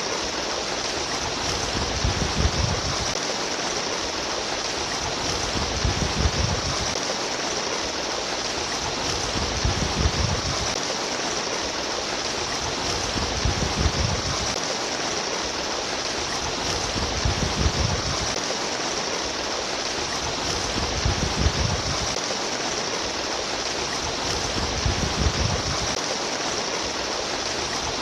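Water babbling and splashing steadily like a stream, with a low rumble swelling at regular intervals about every four seconds.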